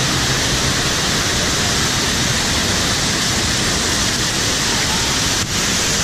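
Loud, steady rush of falling water, like a waterfall, with a brief dip near the end.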